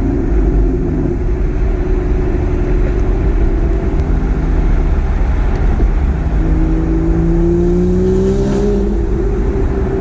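Car engine running under way, a steady drone whose pitch climbs gently for a couple of seconds about two-thirds of the way in, then settles.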